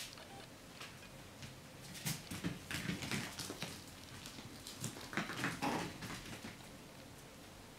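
Puppies play-fighting on a wooden floor: scuffling and claws clicking on the boards, with short puppy growls. The noise comes in two flurries, about two to four seconds in and again around five to six seconds in.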